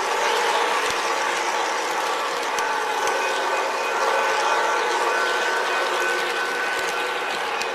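Model train running along the track: a steady mechanical rolling and gear noise with a faint, steady motor whine that comes in about three seconds in.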